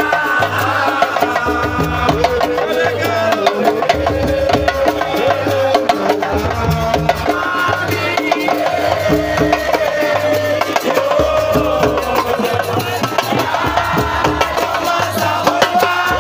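Upbeat music with a fast percussion rhythm over a deep, repeating bass beat, and singing.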